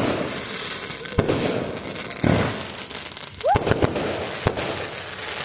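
Fireworks going off: a dense, continuous crackle with sharp bangs about once a second, the heaviest one a little past two seconds in.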